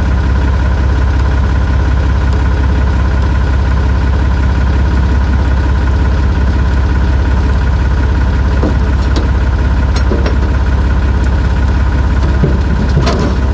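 An engine idling steadily, with a few light clicks and knocks about two-thirds of the way through and near the end.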